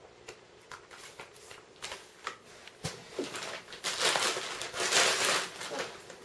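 Pages of a paper instruction manual being flicked, a string of light ticks. Then, about four seconds in, a clear plastic bag crinkles loudly for about two seconds as a car stereo head unit is pulled out of it.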